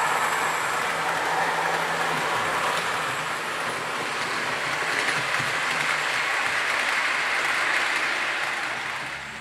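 Model trains running on a 00 gauge layout: a steady rolling whir of wheels on track and small motors, easing off slightly near the end.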